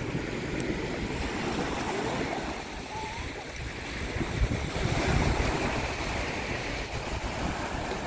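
Small waves breaking and washing up the sand on a beach, a steady rush of surf that swells louder about halfway through.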